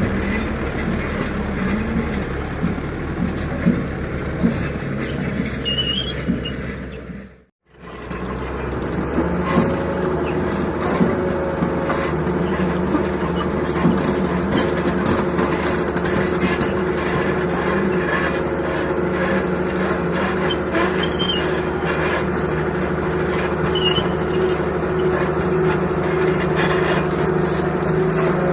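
Diesel engine of an excavator or dump truck running steadily, loading river sand and gravel. The sound drops out completely for a moment about seven seconds in, then the engine drone resumes.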